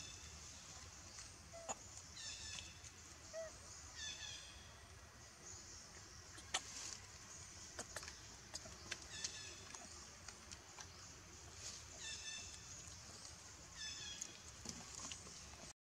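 A bird repeats a short phrase of high notes that step downward, several times, faint against a steady low outdoor rumble. A few sharp clicks fall in between.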